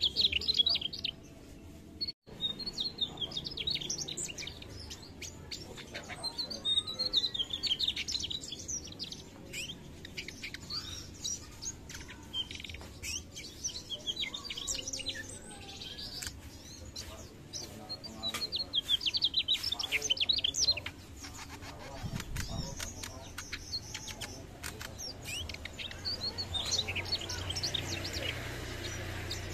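Mugimaki flycatcher singing: bursts of rapid, high twittering song lasting a second or three, repeated every few seconds.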